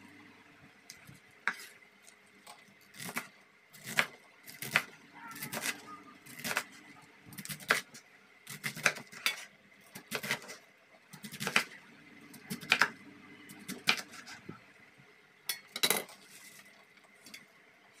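Kitchen knife chopping cabbage on a wooden cutting board: sharp, irregular knocks of the blade against the board, roughly one or two a second.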